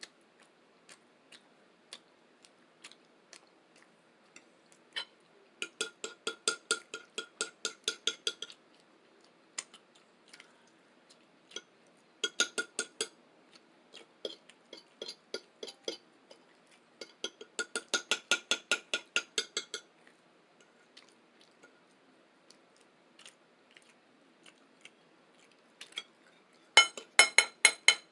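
A plate being tapped in quick runs of about five taps a second, each tap ringing with a clear tone. There are four runs, the last near the end and the loudest, with softer scattered clicks between them.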